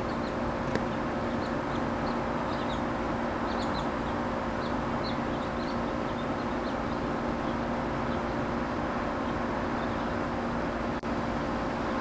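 Steady hum of a honey bee swarm clustered on a tree branch, with scattered short, high bird chirps over it.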